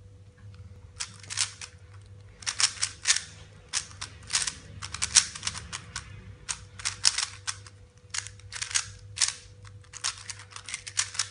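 Plastic clicking and clacking of a MoYu Weilong GTS 3x3 speedcube being turned fast by hand. The clicks come in quick bursts of layer turns with short pauses between them, starting about a second in.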